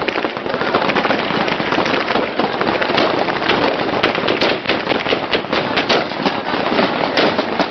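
Dense small-arms gunfire: rifle shots in rapid, overlapping strings, one after another without a break.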